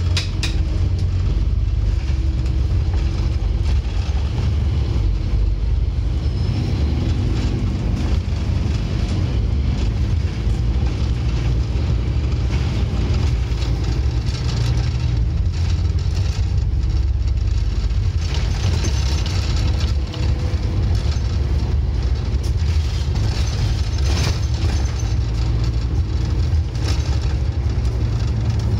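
Onboard sound of a Scania N230UD OmniCity bus on the move, heard inside the passenger saloon: its 9-litre five-cylinder diesel engine running under way as a steady, deep drone, with some growl in it.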